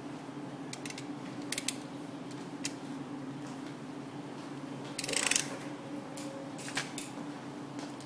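A cable-stripping knife clicking and scraping on the rubber outer jacket of a coaxial feeder cable, with one longer, louder scrape about five seconds in, over a steady low hum.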